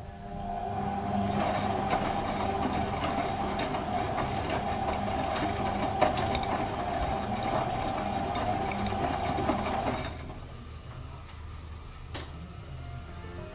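Hotpoint WM31 front-loading washing machine on its main wash: the motor turns the drum with a steady hum while the wet laundry tumbles with many small clicks and splashes. About ten seconds in the motor stops and the drum rests, leaving only a faint background with a click or two.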